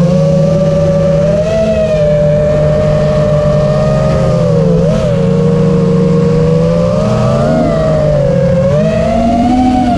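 5-inch FPV quadcopter's brushless motors and propellers whining. Several pitches waver up and down together with throttle and climb near the end.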